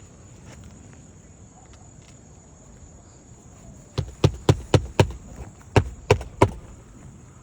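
Hammer driving roofing nails into a new asphalt shingle: eight sharp blows, five in quick succession about four a second, then a short pause and three more.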